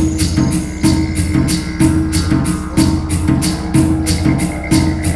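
Percussion-driven music from a vinyl record played over Viva Audio multi-horn loudspeakers. A steady drum rhythm of about two beats a second runs over a low sustained drone.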